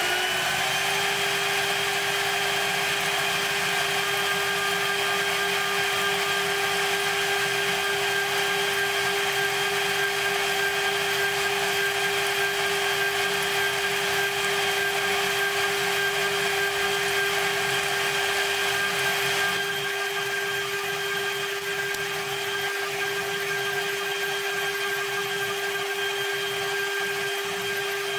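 CNC mill spindle running with a steady high whine while a 1 mm end mill cuts text into 4140 alloy steel under coolant spray, over a constant hiss. The sound gets slightly quieter about two-thirds of the way through.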